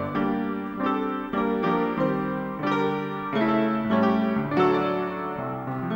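Solo piano music: a slow tune played in chords, with a new note or chord every third to half second.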